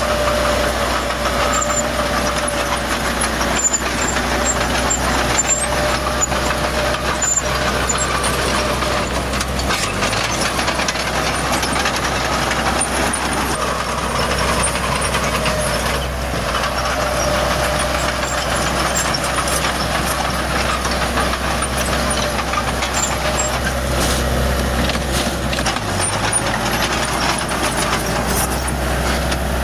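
Heavy diesel engine of earthmoving machinery running steadily, a continuous low rumble with a faint steady whine above it. The rumble dips briefly about ten seconds in and again near the end.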